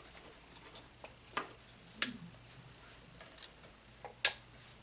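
A few scattered sharp clicks and taps of small parts and hand tools being handled while working on an RC crawler's suspension, the sharpest one near the end.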